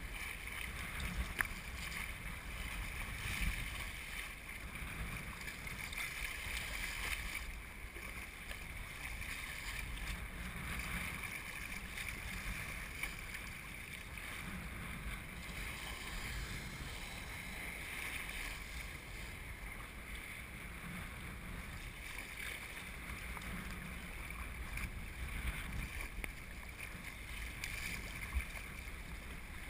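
Wind buffeting the microphone over the slosh and splash of choppy sea water against a sea kayak and its paddle, swelling and easing every few seconds.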